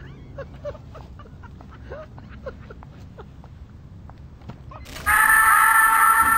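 Scattered short chirps and clicks, two or three a second, then a song's music cuts in suddenly and much louder about five seconds in, with steady held tones.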